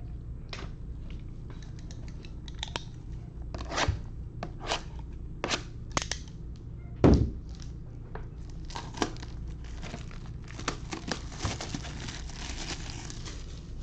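Shrink-wrap being slit and torn off a sealed box of trading cards: a run of sharp rips and clicks, one louder thump about seven seconds in, then plastic wrap crinkling near the end.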